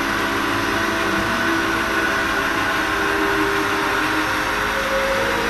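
Athearn Genesis MP15AC model diesel locomotive's DCC sound decoder playing a steady diesel engine running sound through its small onboard speaker as the model rolls along the track.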